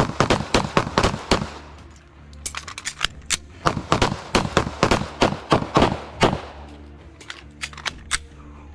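Two pistols firing fast strings of shots at the same time. A quick run of shots comes first, then a pause of about a second, then a longer string, and a few last single shots near the end.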